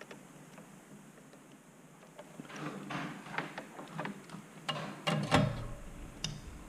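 Hand-work on electronic hardware: scattered light clicks, then a busier run of clicks, knocks and rattles as parts are handled and fitted together, loudest about five seconds in, where a low rumble joins.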